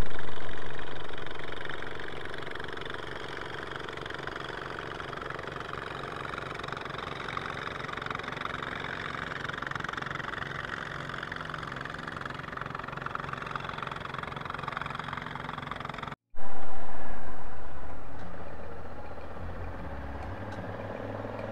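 Honda Africa Twin motorcycle engine running steadily. The sound drops out briefly about three quarters of the way through, then comes back loud and eases down over a couple of seconds.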